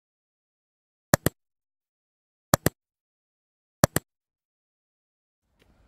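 Three double clicks of a computer mouse sound effect, each a quick press-and-release pair, about 1.3 s apart, with dead silence between them. Faint outdoor background noise begins just at the end.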